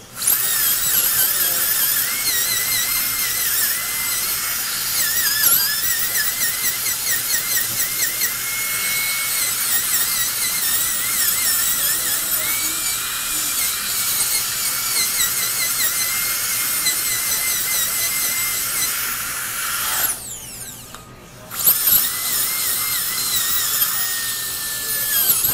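A dental drill whines steadily while grinding down a high spot on the bridge marked by blue articulating paper, to even out the bite. Its pitch wavers as it bears on the tooth. It stops for about a second and a half near the end, then starts again.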